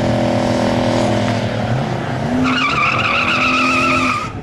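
Muscle car engine held at steady high revs, its pitch falling about a second and a half in and then climbing again. For the last two seconds the tyres give a loud, wavering squeal over it, and the sound cuts off suddenly.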